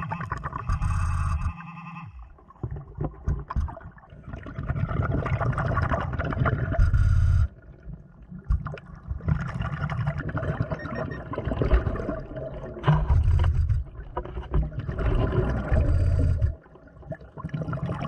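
Underwater breathing through the regulator of a Blu3 Nemo hookah dive system: several stretches of exhaled bubbles, each a few seconds long, with quieter breaks between breaths.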